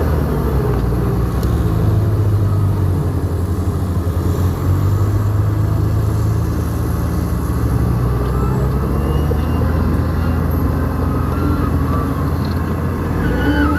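Diesel engine of a New Holland crawler bulldozer running steadily under load while it works the ground, with a faint wavering squeal near the end.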